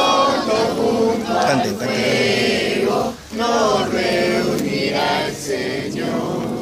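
A group of young people's voices singing or chanting together in unison, in phrases with short breaks between them.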